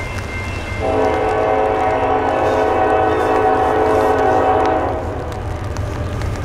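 Air horn of a Norfolk Southern GE AC44C6M locomotive sounding one long blast of about four seconds, several notes sounding together as a chord, starting just under a second in. A steady low rumble runs underneath.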